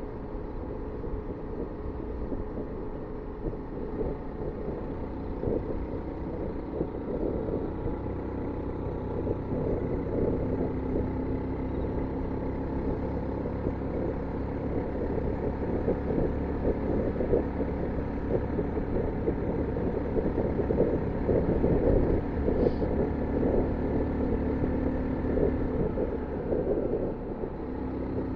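2021 Honda Monkey's 125cc air-cooled single-cylinder four-stroke engine running under way, its note shifting as the throttle changes. Wind rumble on the microphone sits underneath.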